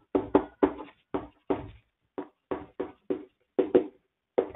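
A quick, irregular run of about a dozen sharp taps and knocks on a writing surface, the sound of someone writing out an equation on a board.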